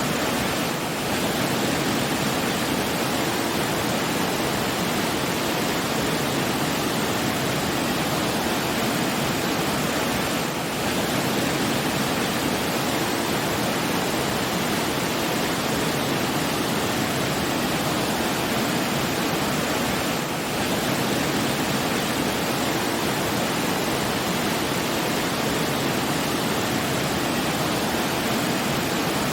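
Steady rushing water, like a waterfall, an even wash of noise with no change in character, dipping slightly in level about every ten seconds.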